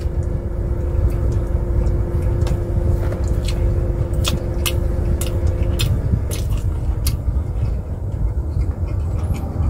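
Steady low rumble in a parked car's cabin with the engine and air conditioning running, with a steady hum that cuts off about six seconds in. Scattered sharp clicks of someone chewing a mouthful of burger.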